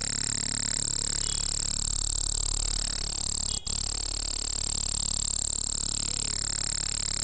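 Night insect chorus: a steady, high-pitched, fast-pulsing trill. It cuts out for an instant about halfway through.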